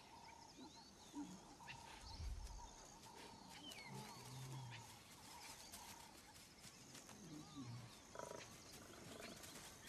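Faint low lion grunts and moans, a few soft calls spread through the stretch, over faint high chirps and a steady high hum.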